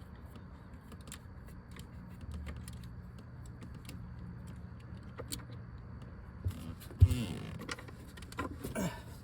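Scattered light clicks and creaks of hand work under the dashboard as a Torx bolt holding a dash vent is worked out, with one sharp knock about seven seconds in. A steady low hum lies underneath.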